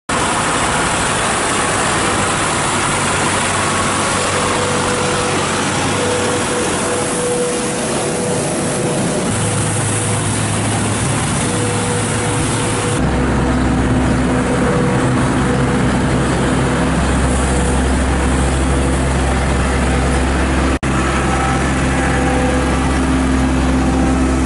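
Diesel engines of municipal street-cleaning vehicles running steadily: a small red tractor, then a road-sweeping machine, then a water tanker truck, with a deeper, heavier engine rumble taking over about halfway through. The sound shifts at each cut and drops out briefly near the end.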